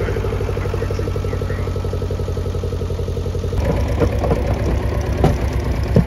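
Vehicle engine idling with an even low pulse. From about three and a half seconds in, irregular knocks and clatter join it.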